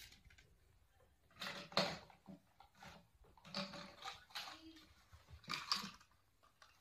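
Hard plastic toy vehicles clattering and knocking against each other and a tabletop in three short bunches, the loudest about two seconds in.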